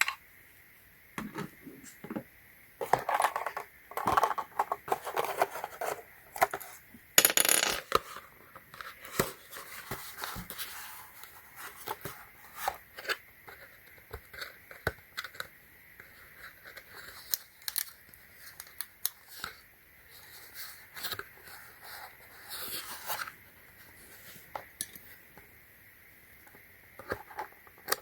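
Loading AA batteries into a small plastic RC car controller: scattered light plastic clicks, rattles and handling rustles, with a short louder rustle about seven seconds in.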